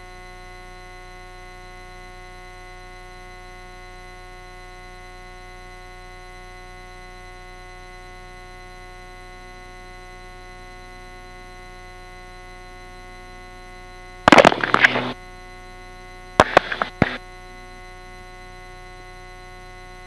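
Steady electrical hum with several fixed tones, heard through the light aircraft's intercom audio feed. Two short, loud bursts break in, about 14 seconds and about 16 seconds in.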